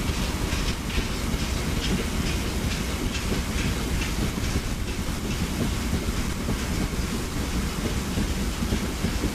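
Diesel-hauled freight train of box wagons running past, a steady rumble with its wheels clicking over rail joints, the clicks clearest in the first half.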